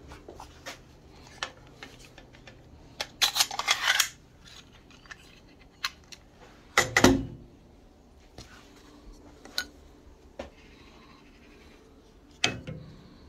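Staplers and a strip of staples being handled: scattered small metal clicks, a short rattling run of clicks about three seconds in, and two heavier knocks, one about seven seconds in and one near the end.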